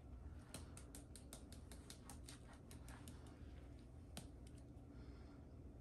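A spice shaker bottle being shaken over fish fillets, making a run of faint quick clicks, about five or six a second, that thin out and stop about four and a half seconds in.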